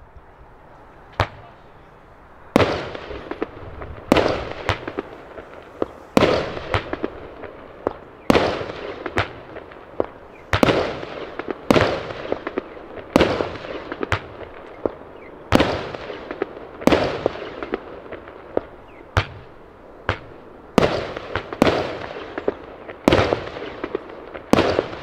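Argento Capri 30 mm 13-shot firework battery firing: a sharp bang about every one to two seconds, shots and aerial bursts with smaller pops between, each bang trailing off.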